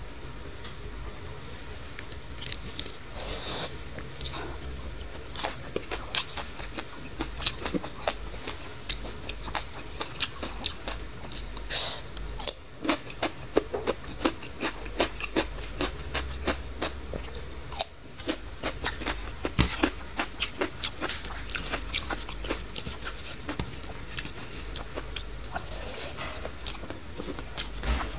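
Close-miked chewing and crunching of a mouthful of food, with raw cucumber among it: many short, sharp crunches and wet mouth clicks, thickest around the middle.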